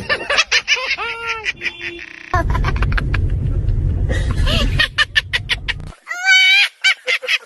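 High-pitched giggling laughter in quick repeated bursts, several short clips spliced together with abrupt cuts where the background hum changes.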